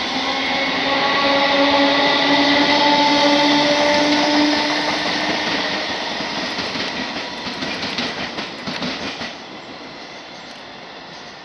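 Class 321 electric multiple unit accelerating away, its traction motors whining and rising in pitch over the first few seconds. The wheels then click rapidly over the rail joints as the train draws off and the sound fades.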